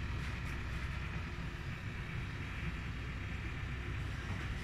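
Steady low rumble with a faint hiss from a stove running under a pot of mung bean stew that is heating up but not yet at the boil.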